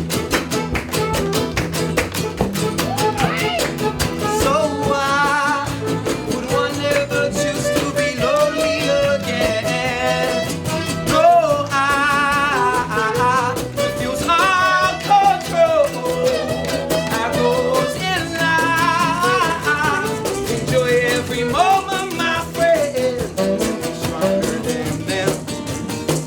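Live folk band playing an instrumental break: a steady guitar strum under a wavering melodic lead line.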